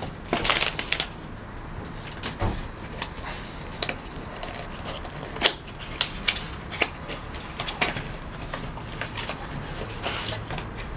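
Paper wrapping rustling, then a small cardboard box being handled and opened, with irregular clicks and taps of the flaps and the plastic unit inside.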